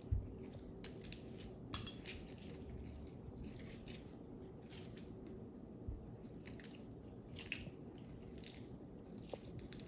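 Clear crunchy slime with jelly 'ice cube' pieces being squeezed and pressed by hand: soft, irregular crackles and squishes, with a low thump at the start and a sharper crack about two seconds in.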